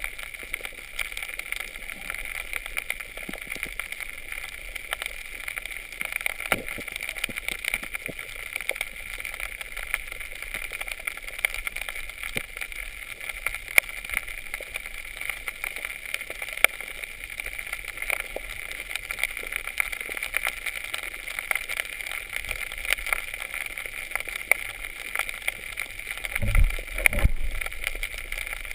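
Underwater ambience picked up by a camera in a waterproof housing: a steady hiss with many faint scattered crackling clicks, and a brief low thudding near the end.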